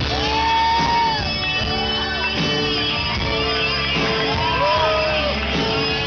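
Live pop-rock band playing, with voices singing over the guitars and drums, heard from the audience in a large hall.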